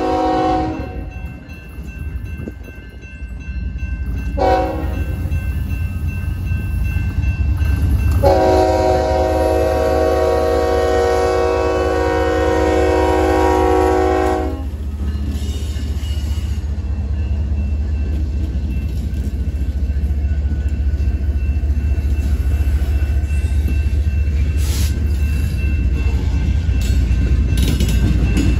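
Union Pacific diesel locomotive's multi-tone air horn sounding for a grade crossing: the end of one blast at the start, a short blast about four seconds in, then a long blast of about six seconds. After the horn stops, the low rumble of the diesel engines and the wheels grows as the lead locomotives pass.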